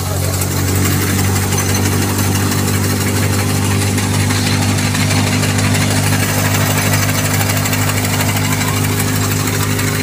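Tractor-driven wheat thresher running steadily: the tractor engine and the thresher's machinery make a constant, unchanging hum.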